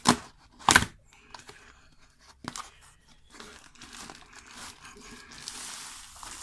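Two sharp knocks, then crinkling and tearing of packing material as a package is opened and its contents are pulled out.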